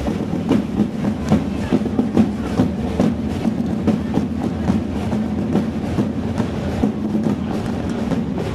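Procession drums beating a fast, steady rhythm of many strikes a second, accompanying a flag-waving display.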